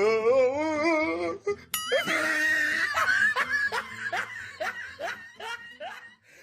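Laughter over background music: a wavering, warbling laugh, a short ringing tone, then a run of short laughs, each falling in pitch, about two a second.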